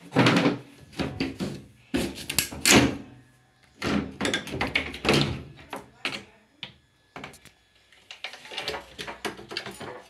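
A person talking, mixed with knocks and thuds from the metal casing of a front-loading washing machine being handled with its top cover off.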